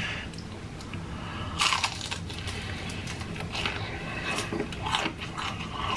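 Biting into and chewing a crispy deep-fried egg roll: a sharp crunch of the fried wrapper about one and a half seconds in, then softer crunches as it is chewed.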